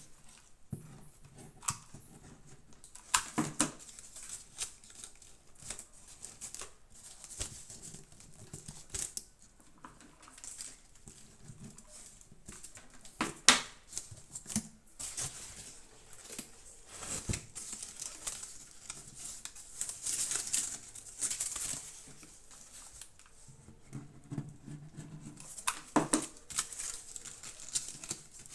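Crumpled brown paper strips rustling and crinkling as they are pressed and folded onto the rim of a cardboard box, with scattered sharp clicks and taps, the sharpest about halfway through.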